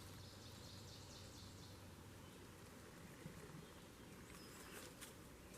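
Near silence in the woods: a faint high-pitched bird trill, rapidly repeated notes, over the first couple of seconds, then a few soft clicks near the end.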